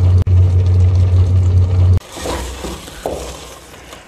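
Loud, steady low rumble of a gas burner on high flame under a pot of boiling greens. About two seconds in it cuts off abruptly, and a wooden spoon scrapes and knocks a few times as it mashes the cooked saag in an aluminium pressure-cooker pot.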